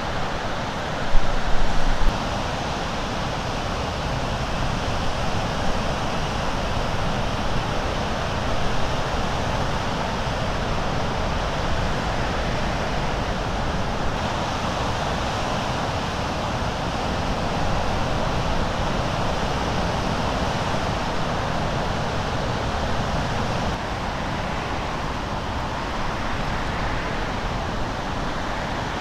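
Steady rush of small lake waves breaking along the shore, mixed with wind blowing over the microphone, with a brief louder gust buffet about a second in.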